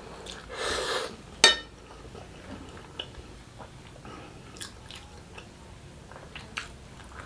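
Close-miked eating of instant noodles: a short slurp just before a second in, a sharp clink of a utensil against the dish about a second and a half in, then soft, scattered chewing clicks.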